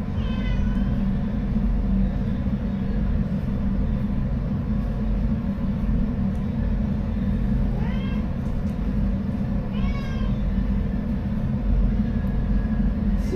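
A domestic cat meowing three times, a few seconds apart, over a steady low rumble.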